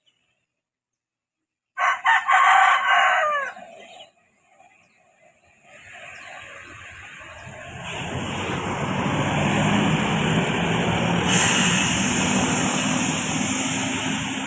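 A rooster crowing once, a call of about two seconds that falls in pitch at the end. Then a bus approaches: its engine and tyre noise swell and stay loud before easing off near the end.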